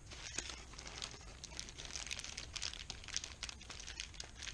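Plastic packaging crinkling and rustling as it is handled, a steady run of small irregular crackles.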